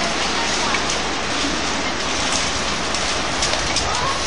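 Heavy rain and wind of a tornado-producing thunderstorm: a steady rushing noise with scattered sharp ticks of rain striking.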